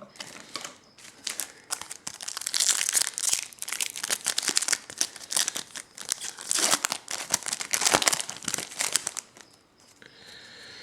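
Wrapper of a 2011 Topps Update baseball card pack being torn open and crinkled in the hands: a dense run of crackling and tearing that dies down about nine seconds in.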